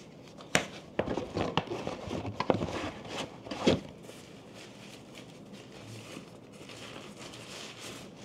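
Thin tissue paper wrapping crinkling and rustling as it is handled and pulled off a camera body. Sharp crinkles and light knocks come in the first few seconds, then softer rustling.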